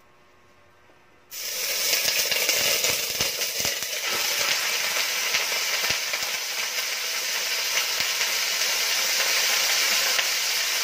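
A whole raw chicken hitting hot cooking oil in a pot: a sudden loud sizzle starts about a second in and carries on as steady frying with crackling and popping.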